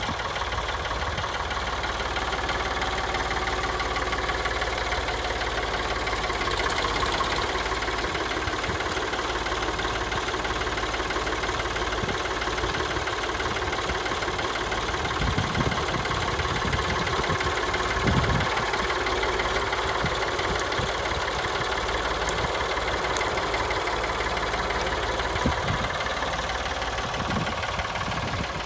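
Ford 4600 tractor's three-cylinder engine running steadily while the tractor is driven, with a few low thumps about halfway through and again near the end.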